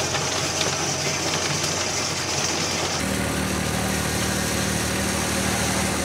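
Engine running steadily, with a hiss over it. About halfway through, the sound changes abruptly to a deeper, steadier engine hum.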